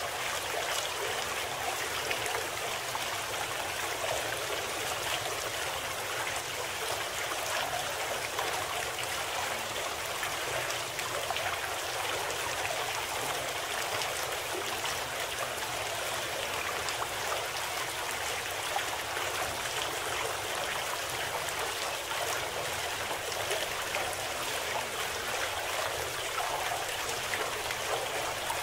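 Steady flowing-water sound like a running stream, even and unbroken. It serves as the masking bed of a subliminal audio program.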